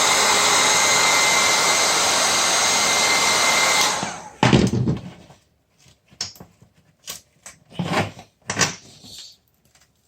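A handheld electric blower runs steadily with a rushing air sound and a thin high whine. It is switched off about four seconds in and winds down, followed by a few scattered knocks and clicks of handling.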